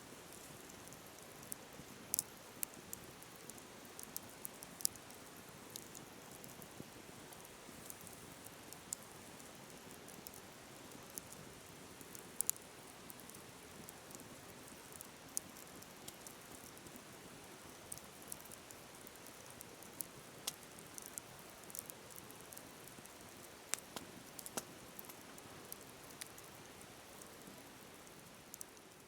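Wood campfire crackling, with frequent sharp, irregular pops, over the steady rush of a flowing river.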